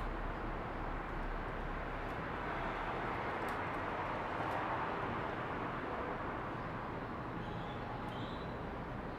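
Steady outdoor background noise, with a faint short chirp about eight seconds in.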